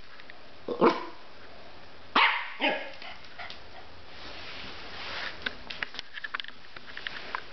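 Norfolk terrier puppy barking at a washing machine: a sharp bark about a second in and two more just after two seconds, followed by a run of light, quick clicks.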